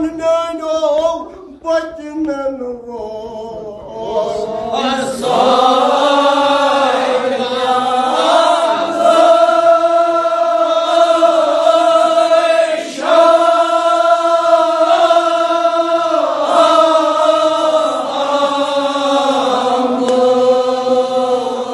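Men chanting a Kashmiri marsiya, a Shia mourning elegy, together in long, drawn-out lines. Softer at first, the group swells to full voice about five seconds in.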